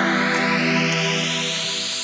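Electronic intro music: held synth notes under a whooshing sweep that rises steadily in pitch, building up toward a drop.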